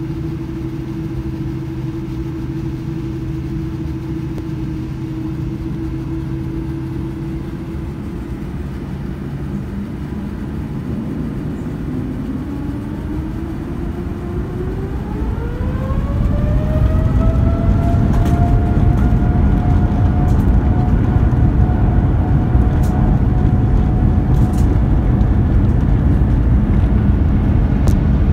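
Boeing 787-9 jet engines heard from inside the cabin: steady at low thrust, then about twelve seconds in a whine rises in pitch over several seconds as the engines spool up to takeoff thrust. The sound grows louder and holds steady as the takeoff roll begins.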